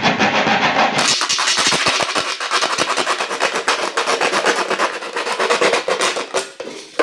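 A blade sawing through a thin plastic drinks bottle: a fast, dense run of scratchy, crackling strokes that starts about a second in and stops shortly before the end.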